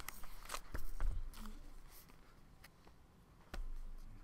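Classroom room noise: scattered small clicks and taps, with a low thump about a second in and another near the end.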